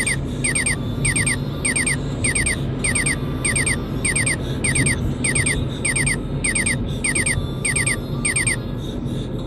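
Radar detector alert chirping at an ARH CAM S1 tripod speed camera: a quick triple falling beep repeated about every 0.6 s. It runs over steady car cabin road noise and stops about nine seconds in.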